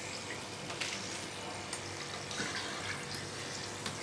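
Potato fries deep-frying in hot vegetable oil, the oil sizzling steadily, with a few light clicks of a skimmer against the cooker bowl as the fries are lifted out.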